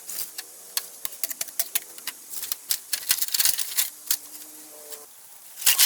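A blade striking and splitting bamboo: quick, irregular sharp cracks and taps, with a scraping hiss of shaving about halfway through and a louder crack near the end.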